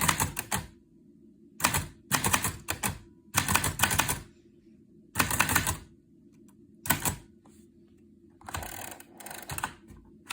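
1940 Underwood Universal manual typewriter being typed on: short runs of rapid keystrokes, each about half a second long, with pauses of a second or so between them. The last runs, near the end, are softer.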